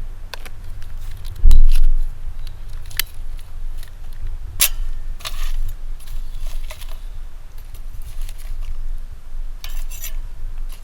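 Light metallic clinks and scrapes of metal objects being handled, with a loud dull thump about a second and a half in.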